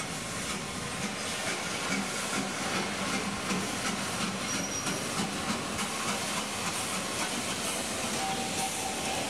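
Narrow-gauge steam locomotive moving slowly with a rake of vintage wooden coaches, steam hissing over the steady rumble and clatter of the wheels.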